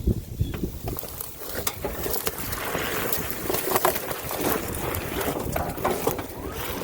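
Electric UTV driving through soft mud: tyre and mud noise with scattered knocks and splashes as it bogs down.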